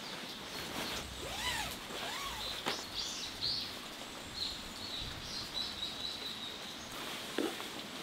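Steady light rain falling in a forest while birds call: two arching calls a little over a second in, then high chirps and a short run of notes in the middle. A few soft clicks and rustles come from a lightweight tent being handled.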